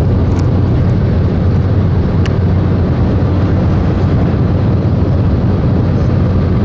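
Steady low engine drone of a running vehicle, with an even hum and noise that hold constant throughout.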